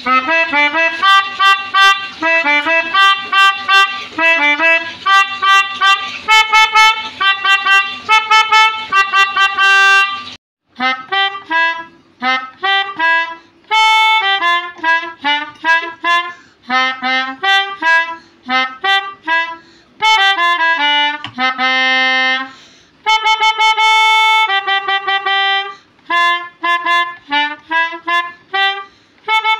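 A pianika (melodica) playing a simple melody one note at a time, in short, separate reedy notes. About ten seconds in the notes stop briefly and a second tune begins.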